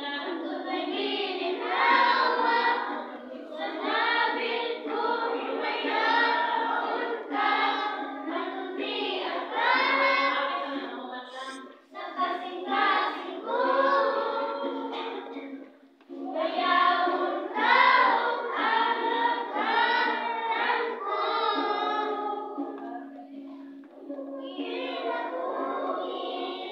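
A group of children singing together, phrase after phrase, with two short breaks in the middle.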